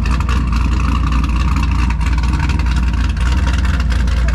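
A Chevrolet SS's 6.2-litre LS3 V8 idling through its exhaust with a steady low rumble.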